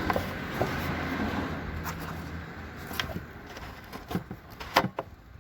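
A few sharp clicks of the plastic tail-light bulb socket being twisted and handled in its housing, over a steady vehicle hum that fades out over the first three seconds.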